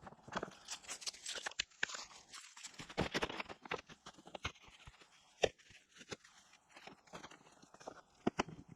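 Rocks and soil being shifted and set in place: irregular crunching, scraping and sharp knocks of stone, busiest in the first three seconds.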